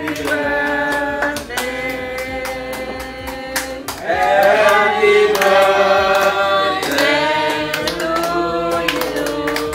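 A group of people singing together in long held notes, with hand clapping.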